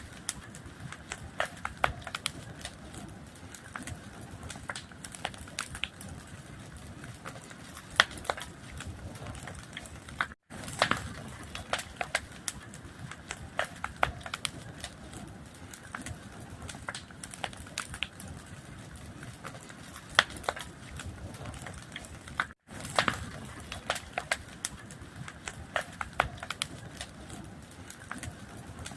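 A fire crackling, with many irregular sharp pops and snaps over a low steady rushing sound. It cuts out for an instant twice, about twelve seconds apart.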